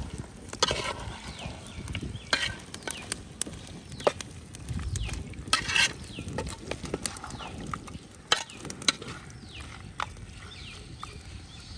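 Beef fry being stirred in a cooking pan, the utensil scraping and knocking against the pan in irregular strokes over a light sizzle.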